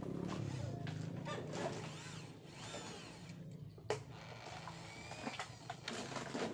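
A power tool's motor running steadily with a low hum, with scattered knocks and a sharp click about four seconds in.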